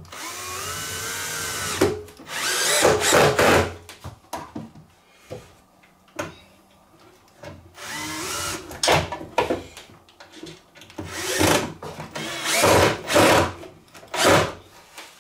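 Power drill-driver driving drywall screws into wood: one run of about two seconds at the start, then several short bursts of the motor speeding up and slowing down.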